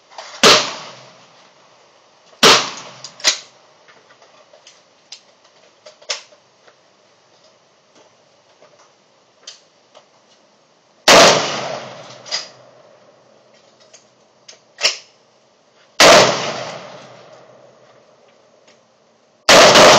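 Rifle shots on a shooting range, about nine single shots fired irregularly, several seconds apart. The three loudest, about halfway through, a little later and at the very end, each trail off in a long echo.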